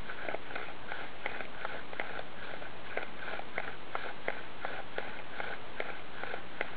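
Bow drill in use: a seasoned yellow pine spindle spun back and forth by a bow with saw palmetto cord, grinding in a yellow pine fireboard. It makes a rhythmic rasp of about three strokes a second, with sharp clicks scattered through.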